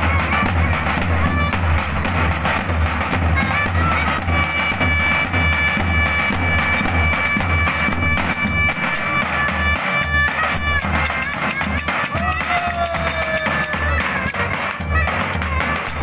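Turkish street band music: davul bass drums beaten in a steady rhythm under a wind instrument holding long high notes, with a short sliding note about three-quarters of the way through.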